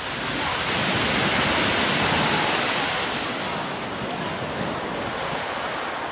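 Waves washing up a pebble beach: the surf hiss swells in the first second to its loudest, then eases off to a lower, steady wash.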